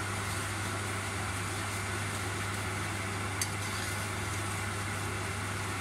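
Steady low hum with an even hiss beneath it, and one light metal tap about three and a half seconds in, from the spatula against the brass kadhai as the masala is stirred.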